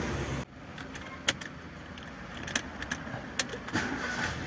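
A steady low running hum, most likely the engine, cuts off suddenly about half a second in. After that come scattered light metallic clicks and taps over a quieter background, and a low hum comes back near the end.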